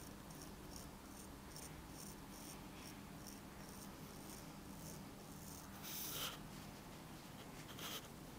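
Straight razor scraping stubble from the upper lip in short, light strokes, about three faint scratches a second. A louder rustle comes about six seconds in and a shorter one near the end.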